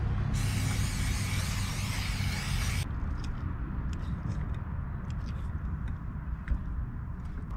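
Aerosol cooking spray hissing into a frying pan for about two and a half seconds, then light clicks and scrapes of a utensil against an enamel plate, over a steady low rumble.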